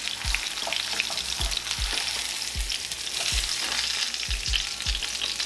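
Vegetable oil sizzling and crackling in a hot skillet under two flour-dredged ribeye steaks as they sear and are turned over with tongs. Soft low knocks come at irregular intervals.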